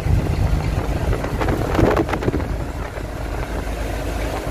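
Scania truck driving: steady low engine and road rumble with wind noise, and a few brief knocks about a second and a half to two seconds in.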